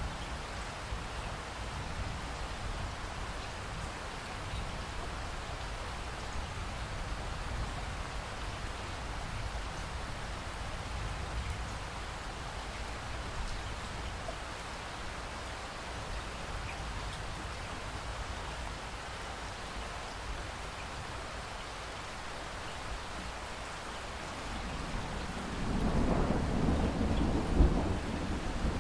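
Steady rain falling, an even hiss, with a roll of thunder rising near the end into a deep, loud rumble.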